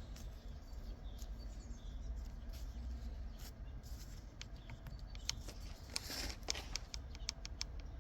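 Light clicks and taps of parts and tools being handled on a workbench, with a short scrape and a quick run of clicks late on, over a low steady hum.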